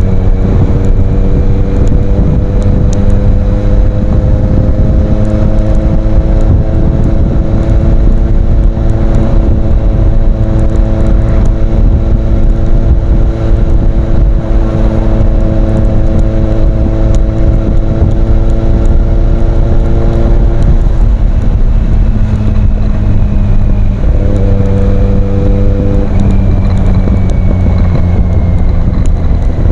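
Kawasaki Z800 inline-four engine through an Ixil aftermarket exhaust, running loud and steady, its pitch slowly climbing for about twenty seconds, then dropping and stepping up and down a few times near the end.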